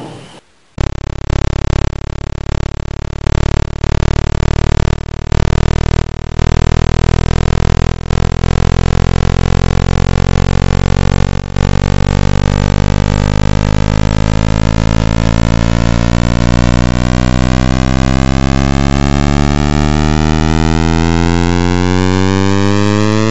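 Sonified space recording: a buzzy electronic drone rich in overtones that slowly glides upward in pitch. It starts about a second in, cuts in and out several times over the first few seconds, then holds steady while the pitch keeps climbing, faster toward the end.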